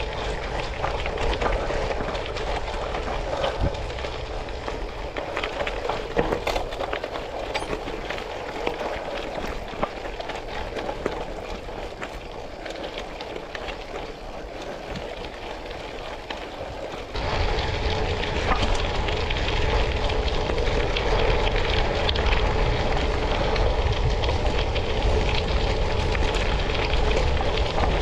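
Tyres rolling over a gravel road, a steady crunch and crackle of loose stones with many small clicks. It gets suddenly louder, with more low rumble, about 17 seconds in.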